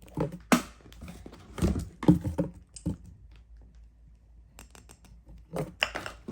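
Packaging and boxed products being handled: irregular clicks, knocks and brief rustles in three bursts, with quieter gaps between.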